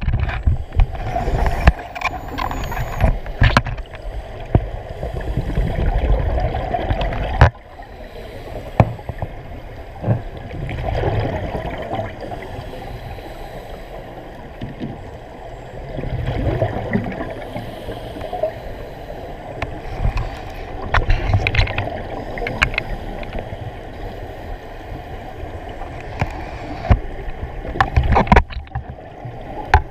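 Scuba breathing heard underwater: surges of rushing, bubbling noise from divers' exhaled bubbles every few seconds over a low rumble, with scattered sharp clicks.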